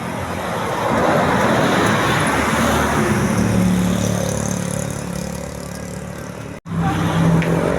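Tour bus driving past on a road: engine and tyre noise that swells about a second in and fades away, then breaks off abruptly near the end, where similar traffic noise starts again.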